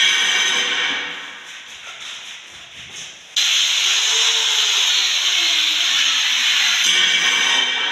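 Electric drill with a paddle mixer running with a loud hissing, scraping noise. It falls away about a second in and cuts back in abruptly a couple of seconds later, with a falling whine underneath.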